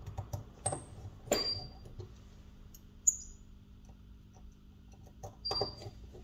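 Small repair tools and phone parts handled on a work surface: a few light clicks and taps, some with a short high metallic ping, the sharpest about three seconds in.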